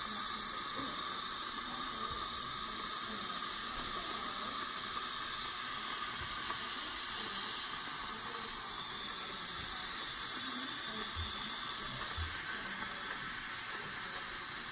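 Dental suction hissing steadily as it draws air from the patient's mouth, a little louder for a few seconds in the middle.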